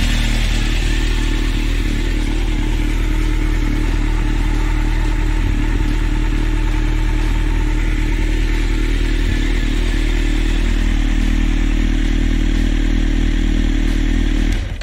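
Honda CB 1300 Super Four's inline-four engine idling steadily, its note unchanged. It cuts off just before the end.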